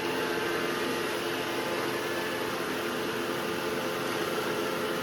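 Robot vacuum cleaners running, a steady whirring hum of motors and brushes with a few steady tones in it.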